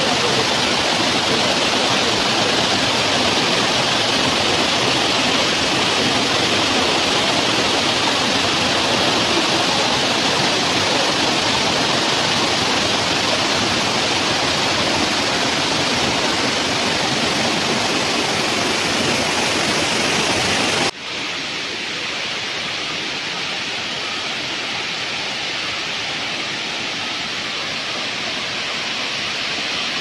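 Waterfall water rushing steadily over rock ledges. About two-thirds of the way through it drops suddenly to a quieter, duller rush.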